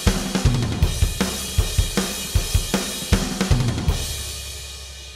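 Drum kit playing a steady beat of bass drum, snare and hi-hat, a comedy sting after a punchline. The hits stop about four seconds in and a cymbal rings and fades out.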